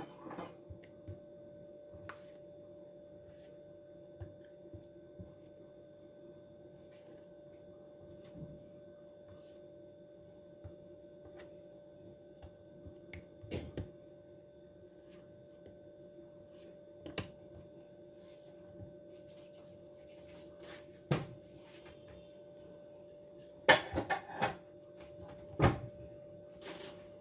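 Scattered knocks and clatters of kitchen work with utensils and baking things, a few louder ones near the end, over a steady hum.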